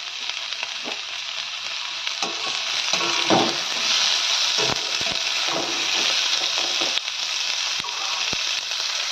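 Chopped onion, green chilli and capsicum sizzling in oil in a metal kadai over a low gas flame, stirred with a perforated metal spatula. The steady sizzle is broken by short scrapes and knocks of the spatula against the pan, several times.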